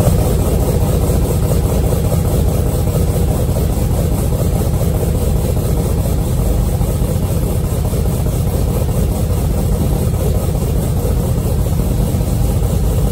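Chevrolet Camaro SS 6.2-litre V8, fitted with an aftermarket cam and long-tube headers, idling steadily.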